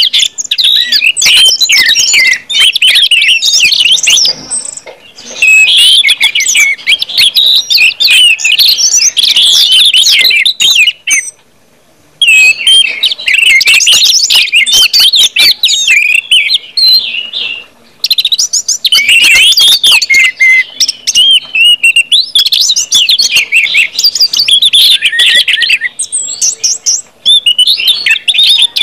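Orange-headed thrushes singing loud, full 'ngeplong' song: rapid, varied whistled and warbled phrases in near-continuous runs, with brief breaks, the longest about 12 seconds in.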